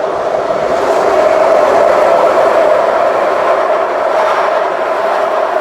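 A train passing close by, loud and steady: rail and wheel noise with a sustained tone running through it.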